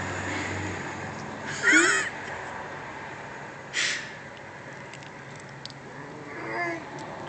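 Cat making odd vocal noises while eating: a loud call with wavering pitch a couple of seconds in, a short breathy burst about four seconds in, and a softer call near the end.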